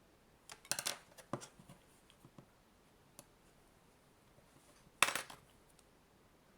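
Clicks and scrapes of hard plastic from handling and prying at a Nintendo Switch AC adapter's welded case: a quick cluster about half a second in, a few light ticks, then one sharper, louder click-and-scrape about five seconds in.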